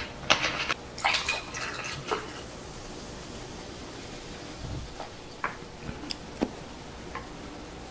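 Cola being poured from a plastic bottle into a glass mug over ice, fizzing as it fills, with a few small sharp clicks later on.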